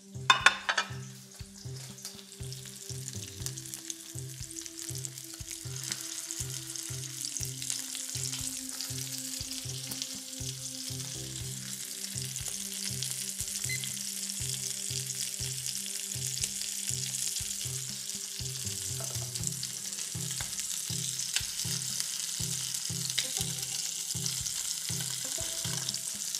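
Floured skrei and salmon fillets frying skin-side down in olive oil in a hot pan: a sudden loud burst of sizzling about half a second in, then a steady sizzle that slowly grows louder.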